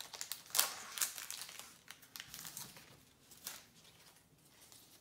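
Foil trading-card booster pack crinkling as it is handled and torn open, with sharp crackles loudest in the first second or so and again a little after the middle, then getting fainter.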